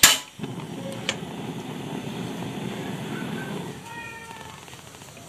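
A Rinnai gas stove burner: a sharp click, then the gas flame rushing steadily for about three and a half seconds before it falls away. The burner is partly clogged on its right side. Near the end there is a brief high pitched cry.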